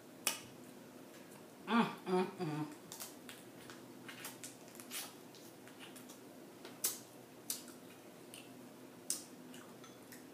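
Snow crab legs being eaten: scattered sharp clicks and smacks of chewing and mouth noises, with a short hummed voice sound about two seconds in.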